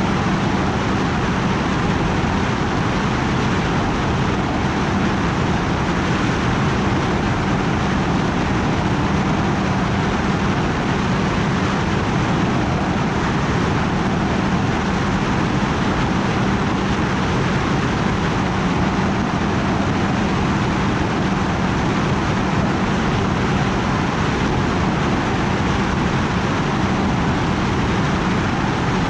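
Steady whirring hum of a drone's propellers and motors, unchanging throughout, with a constant low drone under a wash of rushing noise.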